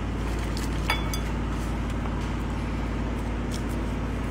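Steady low mechanical hum, with a single light clink about a second in.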